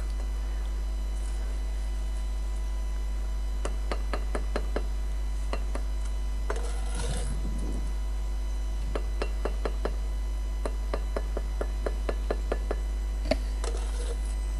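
Light taps of a mason's trowel on brick, many in quick runs, with a short scrape of mortar about halfway through and a slightly harder knock near the end, as bricks are bedded into quick-setting cement. A steady low hum sits underneath.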